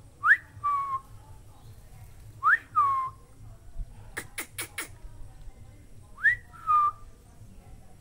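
A person whistling a two-note call three times: a quick rising note followed by a lower held note. A few sharp clicks come in the middle.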